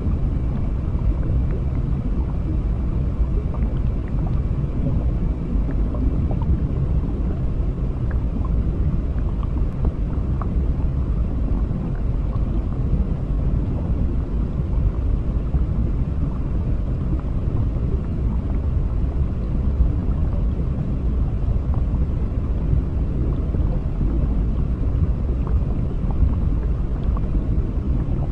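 Underwater ambience: a steady low rumble with faint scattered ticks over it.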